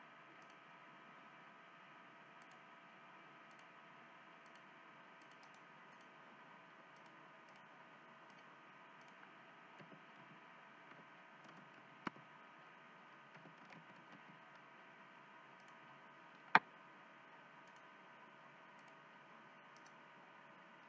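Faint computer mouse clicks and keyboard taps over a steady background hum and hiss, with two sharper clicks, the louder one about sixteen seconds in.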